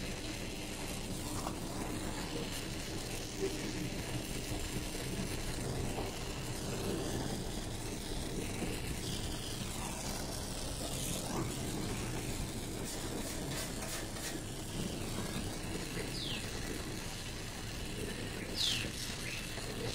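Gas torch flame burning with a steady hiss and rumble while aluminium tube is brazed with a filler rod. A couple of short, high falling squeaks come near the end.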